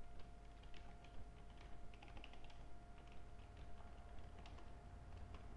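Computer keyboard keys clicking irregularly as code is typed, faint, over a steady low hum.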